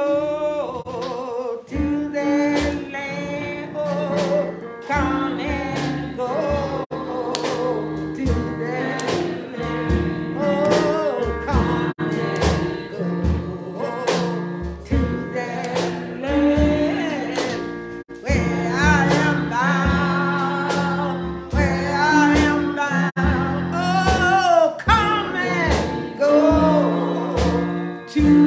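Gospel praise music: a singer with a wavering melody over a band with sustained low notes and a steady beat.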